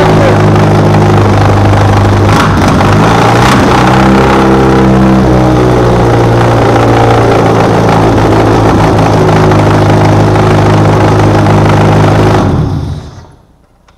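Peugeot XU9J4 1.9-litre 16-valve four-cylinder running with no exhaust attached, loud and a little rough, its speed dipping and picking up a couple of seconds in, then dying about twelve and a half seconds in. The rough running could be a cam out of time, or simply the missing exhaust.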